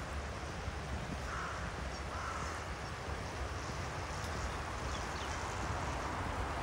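Steady outdoor ambience along a river: a broad rush like flowing water under a low rumble, with two faint short calls about a second and two seconds in.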